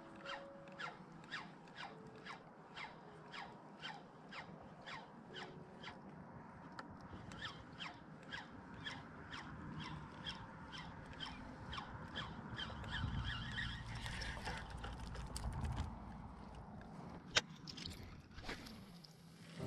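Daiwa BG3000 spinning reel being cranked on a lure retrieve: a regular squeaky tick about two or three times a second, fading out after about twelve seconds. Then a low rumble and a single sharp click near the end.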